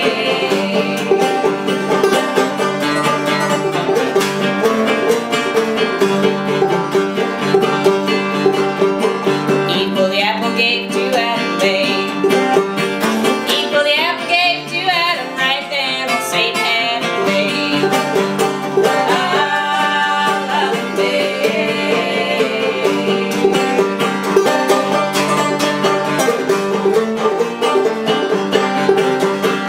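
Open-back banjo and acoustic guitar playing an old-time tune together, with a voice singing over them through the middle of the stretch.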